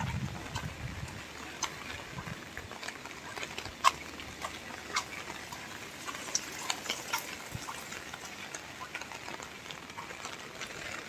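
Light rain falling, with scattered drops tapping sharply on nearby surfaces over a steady hiss.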